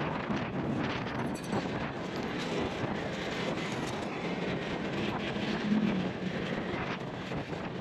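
Steady vehicle noise from riding a Honda motor scooter in traffic: the engine's hum mixed with wind and road noise on the microphone.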